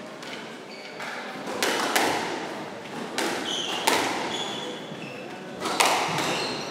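Squash rally: sharp cracks of rackets striking the ball and the ball hitting the court walls, one every second or two, with short high squeaks of shoes on the wooden court floor.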